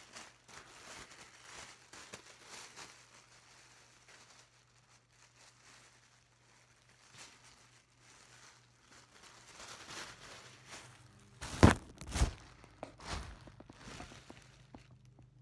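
Green plastic packing film (air-cushion wrap) crinkling and rustling as it is handled and pulled apart, with a few loud, close crackles and thumps near the end.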